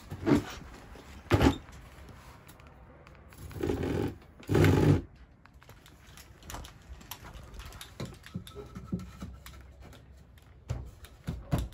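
Wooden 2x4 blocking being handled and pushed into place between rafters: two sharp knocks in the first second and a half, a louder, longer scraping rush about four to five seconds in, then light scattered clicks of wood on wood.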